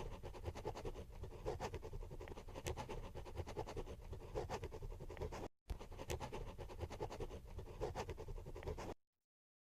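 A crayon scratching across grid paper in quick short strokes as letters are written, with a brief break a little past halfway; it stops shortly before the end.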